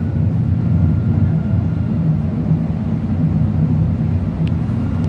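Tram running, heard from inside the passenger car: a steady low rumble.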